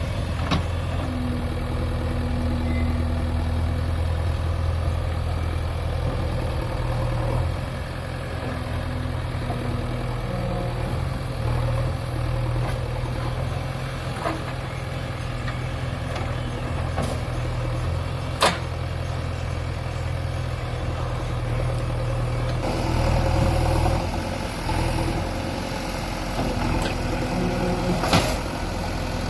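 JCB backhoe loader's diesel engine running steadily, its pitch and load shifting a couple of times, with a few sharp knocks from the machine working.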